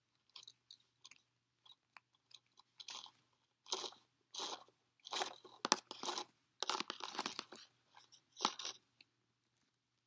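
Hand-handling noise from a rope dog leash and collar: a few small clicks of a metal clip or ring, then bursts of rustling and crackling from about three seconds in as the single-braid line is gathered and pulled against the collar.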